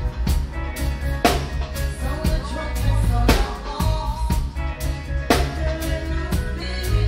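Live reggae band playing, heard from right beside the drum kit: close, loud drums with hard strikes about every two seconds over a heavy bass line and sustained instrument tones.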